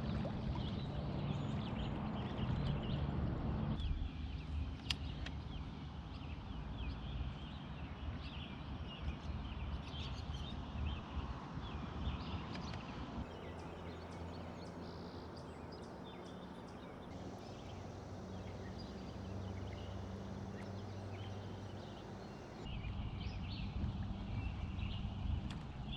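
Outdoor lake ambience with a steady low hum, scattered short bird-like chirps and ticks, and water noise, changing abruptly at several cuts.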